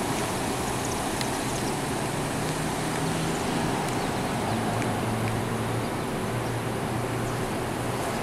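Steady hum of car engines idling in a parking lot, with a low engine drone that grows stronger through the middle.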